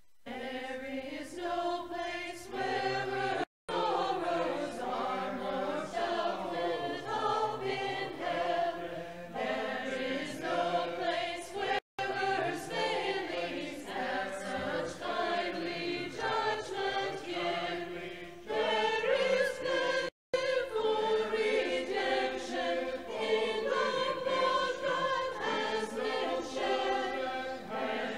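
Mixed choir of men's and women's voices singing together in parts. The sound cuts out for a split second three times.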